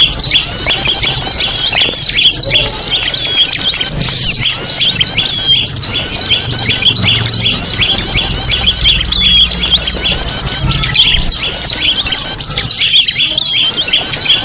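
A loud, busy chorus of many small birds chirping and squeaking over one another without a pause: a bird-lure recording (pikat burung kecil) played to draw small birds in.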